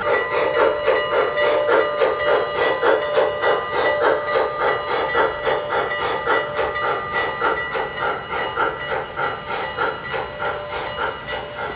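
O-gauge model of a Union Pacific 844 steam locomotive running past, its onboard sound system giving a steady rhythmic steam chuffing with hiss and a few steady tones underneath. It gets louder right at the start as the engine comes close and slowly fades toward the end.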